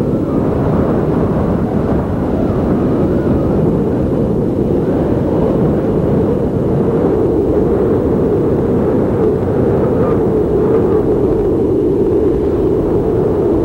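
Steady engine and road noise of a truck driving along, heard from on board.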